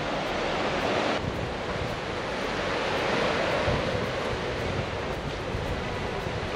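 Steady rush of a white-water mountain river, mixed with wind on the microphone.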